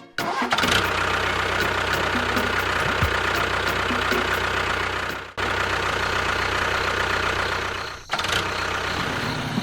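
Vehicle engine running steadily, broken off abruptly twice, about five seconds in and about eight seconds in, and resuming at once each time.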